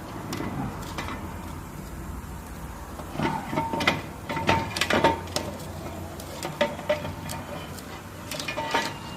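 Metal tools and parts clinking and knocking against each other, a burst of sharp clicks with a brief metallic ring, over a steady low hum.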